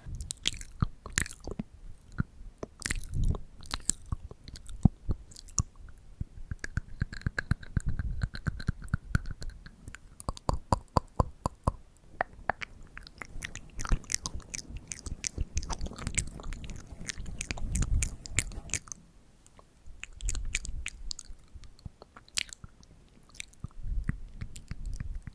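Close-miked ASMR mouth sounds: quick, irregular clicks and smacks of the lips and tongue, coming in dense clusters with short pauses.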